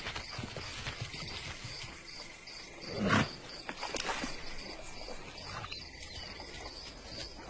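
Crickets chirping steadily in a regular pulse, with one loud animal cry, like a roar, that falls in pitch about three seconds in.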